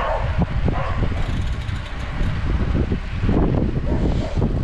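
Wind buffeting the microphone of a bike-mounted action camera while cycling: a steady low rumble that swells about three and a half seconds in.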